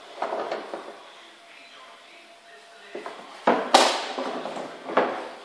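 Plastic knocks and clunks from handling the open battery compartment and hood of a Nilfisk UHB 51-1500 battery burnisher. A sharp knock about three and a half seconds in is the loudest, with another strike about a second later.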